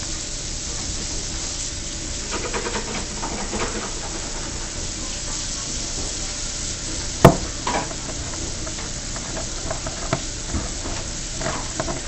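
Handling sounds from a ceiling fan's removable light kit being worked loose: light clicks and rubbing, with one sharp knock about seven seconds in, over a steady hiss.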